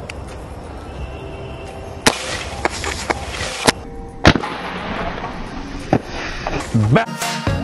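Shots from a CO2 BB air pistol with BBs hitting aluminium soda cans: several sharp cracks spread over a few seconds, about three of them loud. Music comes in near the end.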